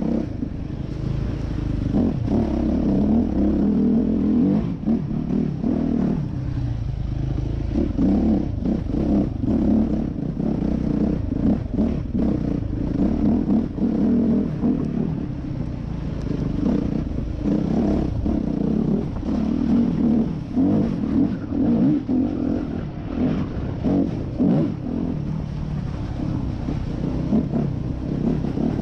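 Yamaha YZ250F dirt bike's four-stroke single-cylinder engine running under way, its revs rising and falling every second or so as the throttle is worked on a rough, muddy trail, with frequent short knocks and rattles from riding over bumps.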